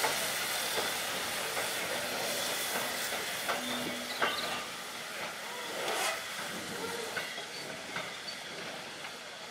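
LMS Jubilee class steam locomotive 45690 Leander moving away: a steady steam hiss with scattered light clicks of its wheels on the rails, growing fainter as it draws off.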